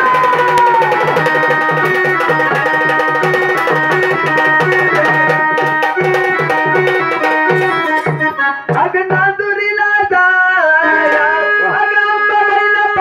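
Live Indian folk-style music through a sound system: a tabla-style hand drum keeps a steady beat under held melodic tones. About eight and a half seconds in, the drum beat drops out and a singing voice with bending, wavering pitch leads the melody.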